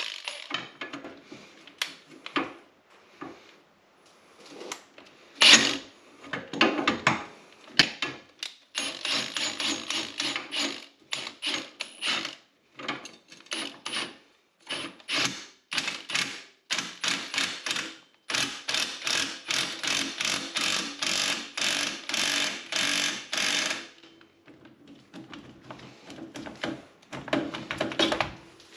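Hitachi cordless impact wrench hammering in repeated bursts, short at first and then long runs of rapid impacts, as it turns the threaded rod of a coil-spring compressor on a UTV's front coilover shock.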